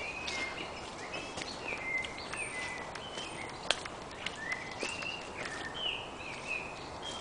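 Several songbirds singing, short whistled phrases overlapping one another, over footsteps on a dirt path. A single sharp click about halfway through stands out as the loudest sound.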